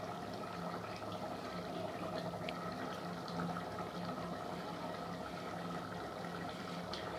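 Lidded pot of beef, potatoes and mung dal boiling in hot water: a steady hiss with faint bubbling and small ticks, as the meat, potatoes and dal cook through.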